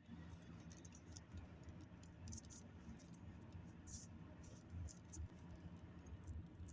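Near silence: a faint steady low hum with scattered soft high ticks.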